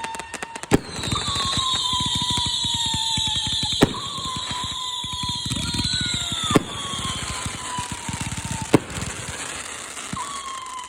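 Consumer fireworks going off: four sharp bangs a few seconds apart over dense crackling, with long whistles that slowly fall in pitch.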